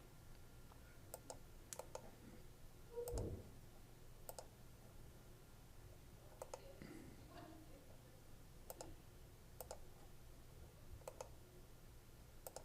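Scattered light clicks and taps of a stylus on a drawing tablet while writing, irregularly spaced, with one duller bump about three seconds in, over quiet room tone.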